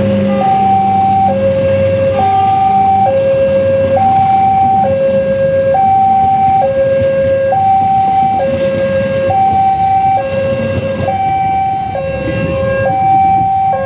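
Railway level-crossing warning alarm sounding a two-tone signal, switching between a low and a high tone about once a second: the signal that a train is approaching the crossing. Steady background noise runs under it.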